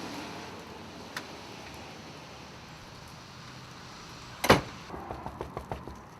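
A door bangs shut about four and a half seconds in, followed by a quick run of light knocks. There is a faint single click about a second in.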